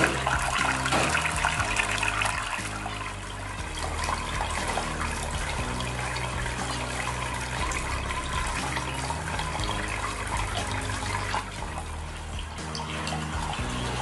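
Water falling and splashing steadily in a homemade cement waterfall fountain, with background music.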